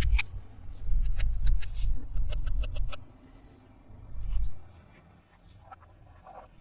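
Close-miked hands handling toy packaging and pieces: a quick run of sharp clicks and crackles with low thumps for about three seconds, then a single soft bump and a few faint clicks.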